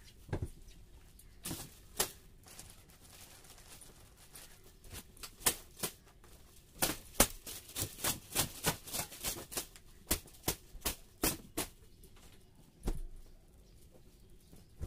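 A hand broom slapping and sweeping across a bed sheet: sharp, irregular swats that come sparsely at first, then quicken to several a second in the middle.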